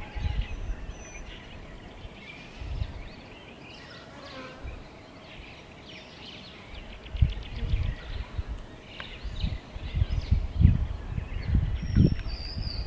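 Wind buffeting the microphone in irregular low gusts, heavier in the second half. Small birds chirp in the background, with a fast trill about four seconds in and a short whistle near the end.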